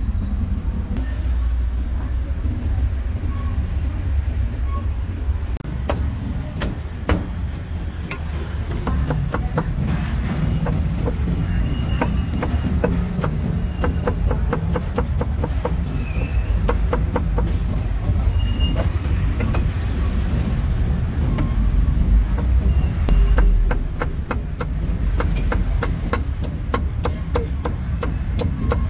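Meat cleaver chopping on a block in quick runs of several sharp strokes a second, once through the middle and again near the end, over a steady low rumble of street noise and background voices.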